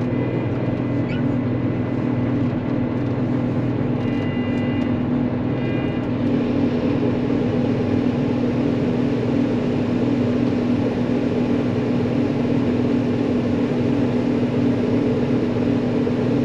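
Gleaner R52 combine running with a steady, unchanging hum.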